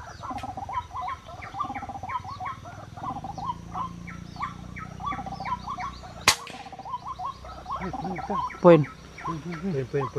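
Fast, rapidly repeating bird calls run throughout. A single sharp air-rifle shot cracks about six seconds in, followed by louder calls that slide in pitch near the end.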